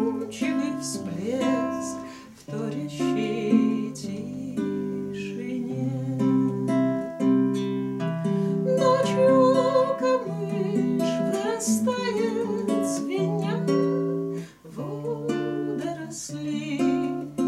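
Two nylon-string classical guitars playing an instrumental passage together, fingerpicked notes.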